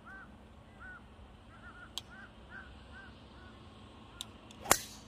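A bird calling over and over in short arched notes, then, near the end, one sharp crack of a golf club striking the ball.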